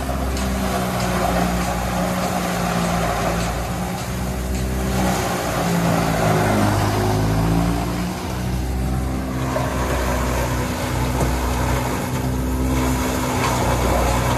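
1952 Ford 8N tractor's four-cylinder engine running steadily while it drives a McCormick-Deering No. 5 silo filler chopping green corn stalks as they are fed in. About halfway through, the engine's pitch sags briefly under the load and then recovers.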